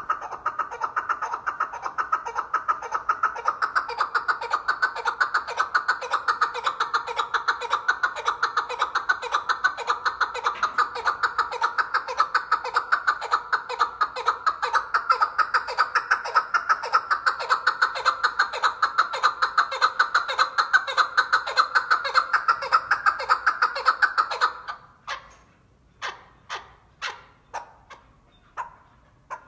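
Caged chukar partridge calling: a long, rapid, unbroken run of clucking notes that, near the end, breaks up into separate single notes a little under a second apart.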